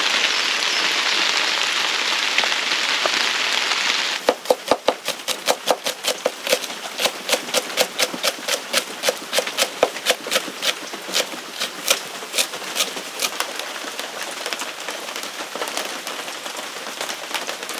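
Steady rain hiss, then from about four seconds in, a kitchen knife chopping on a cutting board in quick, slightly uneven strokes, about three a second, with the rain fainter underneath.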